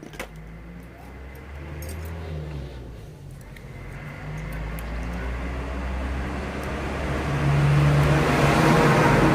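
A motor vehicle engine running, growing steadily louder over several seconds and then holding at a steady, fairly loud level.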